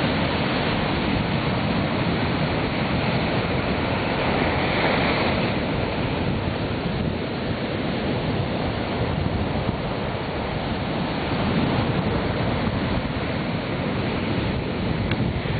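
Ocean surf: small waves of about half a metre breaking and washing up the beach in a steady rush of water.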